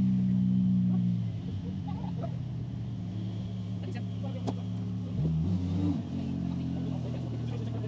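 Off-road buggy engine running at low revs, louder for the first second, with one brief rev that rises and falls about five seconds in before it settles back to a steady run.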